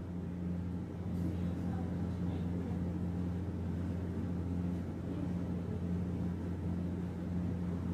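Steady low hum over faint background noise, with no distinct events.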